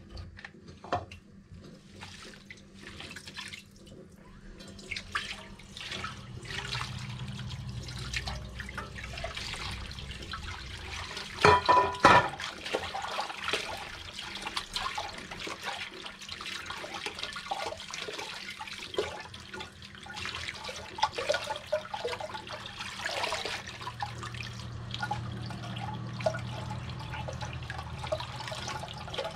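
Tap water running into a plastic bowl in a sink while hands swish and rinse watercress, with steady splashing and sloshing. A brief, louder sound stands out near the middle.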